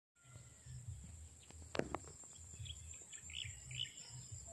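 Small birds chirping in short calls over a steady high-pitched insect drone, with an uneven low wind rumble on the microphone. Two sharp clicks a little under two seconds in are the loudest sounds.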